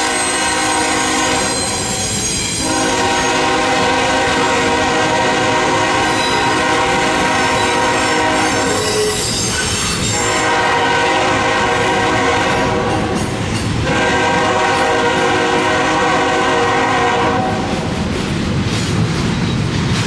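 CSX locomotive's multi-chime air horn blowing in separate blasts: one ends about a second and a half in, then a long blast of about six seconds, a shorter one, and a final long blast that stops a few seconds before the end. Under it, and alone once the horn stops, is the steady rumble of a passing intermodal train's locomotives and container well cars.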